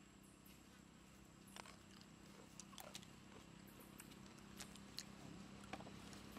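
Near silence: a faint steady low hum with a few scattered small clicks and ticks.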